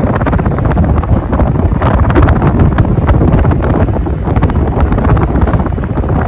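Draft from running ceiling fans buffeting the microphone: a loud, steady rumbling wind noise with scattered clicks.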